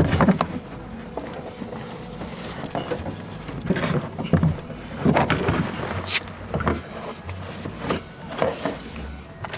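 Car's rear seat being worked loose and lifted out of the cabin: irregular knocks, clunks and rustling as it shifts against the interior.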